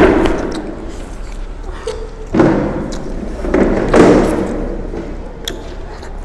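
People slurping and eating noodles straight off plastic plates with no hands, faces down in the food. Three loud noisy bursts: one at the start, one about two and a half seconds in and one about four seconds in, each fading away.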